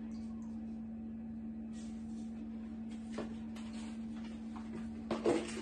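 Faint shaking and rattling of a spice container over a cooking pot, over a steady low hum, with two sharp knocks near the end.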